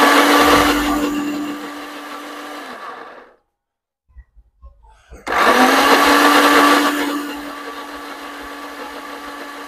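Countertop blender grinding soaked beans into a thick akara batter made with little water, run in two pulses: the motor runs about three seconds and stops, a few small clicks follow, then it starts again about five seconds in and keeps running. Each run is loudest just after it starts, then settles lower as the motor works through the thick mixture.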